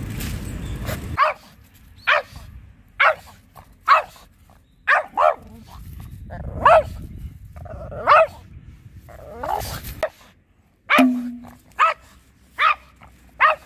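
A Pekingese barking at another dog: about a dozen short, sharp barks, roughly one a second, some in quick pairs. They follow a second of snuffling nose breaths from sniffing at dry leaves, which stops abruptly.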